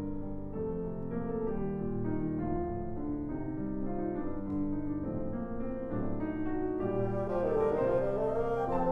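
Bassoon and piano playing a contemporary classical duet: a melody of held notes moving step by step over piano chords, swelling slightly toward the end.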